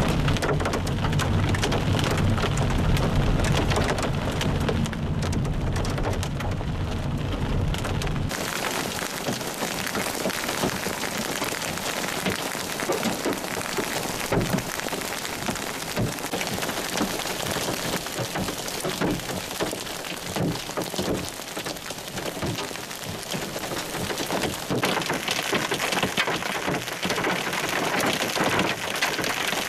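Hail and rain drumming on a vehicle's windshield and body as it drives a dirt road, with a low road rumble underneath. About eight seconds in the rumble stops and the sound becomes hailstones and rain pelting a gravel road and grass: a dense, continuous patter of small ticks.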